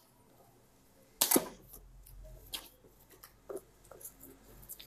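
Cardboard box being handled and slit open with a knife: one sharp click about a second in, then a few faint ticks and scrapes.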